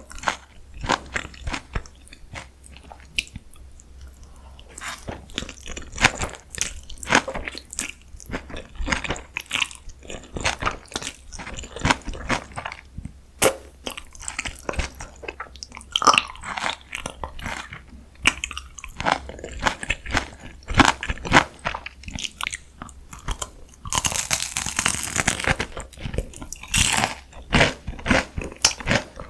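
Close-miked eating: crisp bites crunching and chewing in quick, irregular clicks, with one longer, louder, hissy stretch about four-fifths of the way through.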